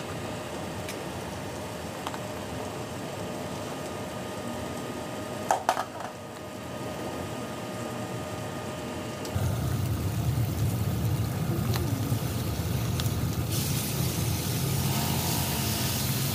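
Pork belly slices with garlic sizzling in oil in a wok, with a few sharp pops about five and a half seconds in. About nine seconds in the sizzle turns louder and fuller, with a low hum under it, as the pork browns; near the end a plastic spatula turns the pieces.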